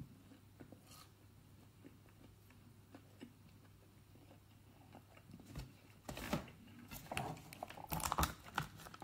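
Chewing a mouthful of crunchy battered mini sausage with the mouth closed, faint at first, then louder short crunching and clicking noises in the last three seconds or so.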